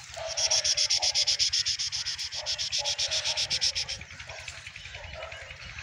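An insect calling close by: a fast, even, high-pitched chirring of about ten pulses a second that stops suddenly about four seconds in, with a fainter chirring carrying on after.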